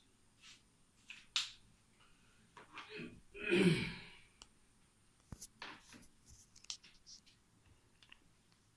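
Marker pen tapping and scratching on a whiteboard in short strokes, with a board duster wiping across the board about three and a half seconds in, the loudest sound. More quick marker strokes follow.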